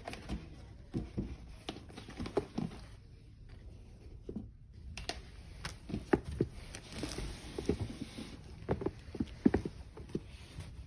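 Sneakers and their box being handled: irregular soft knocks and taps, with a short stretch of rustling about seven seconds in.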